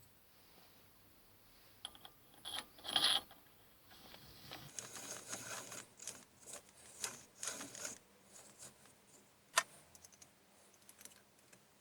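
Faint, scattered clicks and light taps of small metal parts being handled, with a short cluster about three seconds in, a run of light ticks in the middle and one sharper click near the end.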